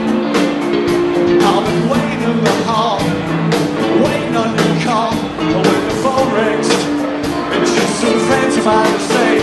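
Live rock and roll band playing on stage: drums keep a steady beat, about two hits a second, under sustained electric guitar and bass chords.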